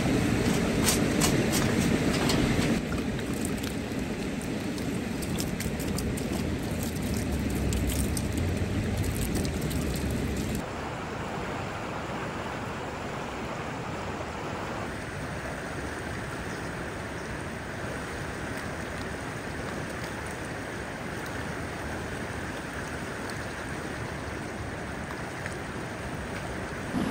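A few clinks and rustles as a metal fire plate is slid into a fabric fire-extinguishing bag, then the steady rushing of a shallow river flowing over stones. The river's level steps down a few times.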